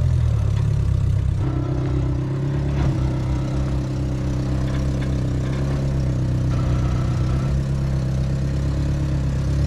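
One-ton Geo Tracker's engine running steadily at low revs as it crawls slowly over rock, its note shifting slightly about a second and a half in.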